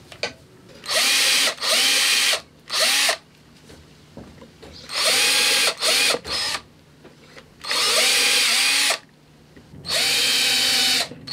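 Electric drill run in about seven short bursts, some back to back, drilling small pilot holes into the back of a maple guitar neck, gently and a little at a time.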